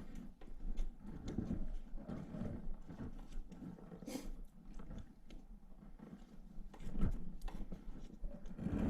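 Hands working close to the microphone on a dirt bike's radiator area: uneven rubbing, scraping and light clicks as the radiator hose is pushed aside and the fan is fitted, with a short scrape about four seconds in and a sharper knock about seven seconds in.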